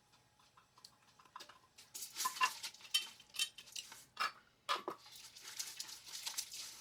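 Metal spoon clinking and scraping against metal cookware, a run of irregular knocks and short scrapes starting about a second and a half in, as while spooning canned chilies out and stirring ingredients in a pot.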